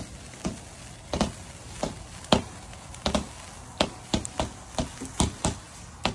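A consumer aerial firework firing a string of sharp pops, about fifteen at uneven intervals, coming faster in the second half, each with a short ring.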